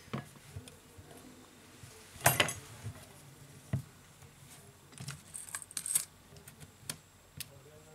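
Small phone parts and tools being picked up and handled on a workbench: scattered light clicks and clatters, the loudest about two seconds in and a cluster around five to six seconds.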